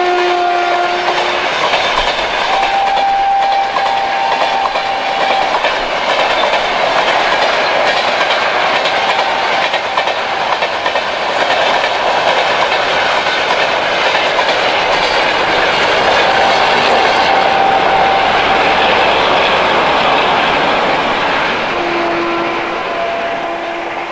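Rajdhani Express LHB passenger coaches rolling past, their wheels clattering over the rail joints in a steady rush of noise. A few brief steady tones sound at the start and near the end, and the noise eases off near the end as the train moves away.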